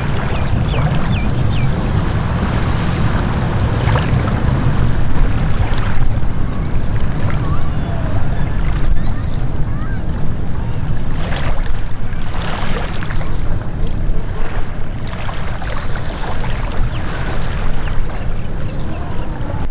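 Wind buffeting the microphone over the wash of sea water and small waves, with a few louder gusts or splashes past the middle.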